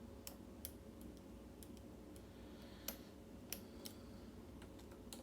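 Light, irregular metallic clicks of a lock pick and tension tool working the pin stacks of a Schlage mortise cylinder, with two sharper clicks around the middle.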